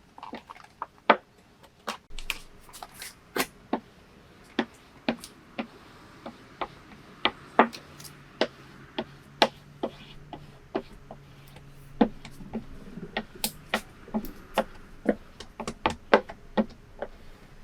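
Irregular sharp clicks and taps, one or two a second, as a vinyl wrap is worked down onto a wooden cornhole board with a squeegee.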